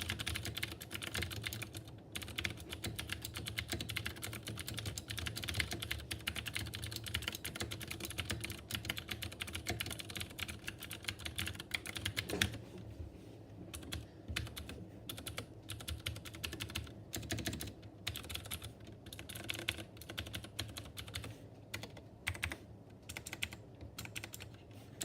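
Typing on a mechanical keyboard with clicky Cherry MX Blue switches and PBT keycaps: a dense, fast run of keystrokes that thins about halfway through into slower, separate key presses.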